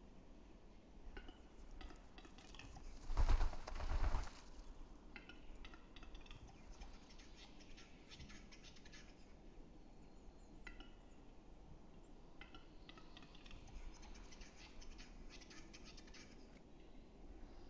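Male western capercaillie's display song: series of dry clicks that come faster and faster, repeated several times, with a much louder burst about three seconds in.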